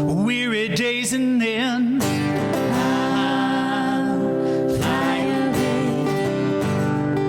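Acoustic guitar strumming under a singing voice that holds long notes with vibrato, in a gospel worship song.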